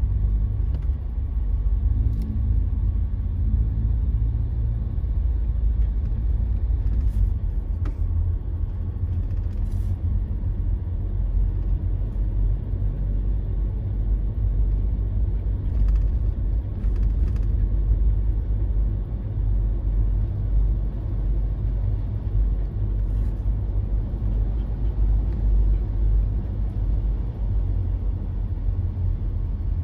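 Jeep driving slowly, a steady low rumble of engine and tyres heard from inside the cab, with a few faint ticks.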